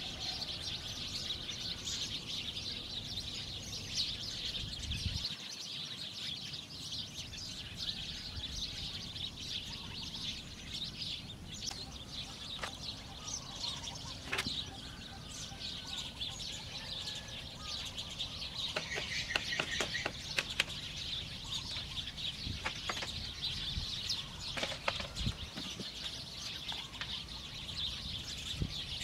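Steady chirping of forest birds, with sharp knocks of bamboo being chopped and tapped now and then, including a quick run of knocks about twenty seconds in.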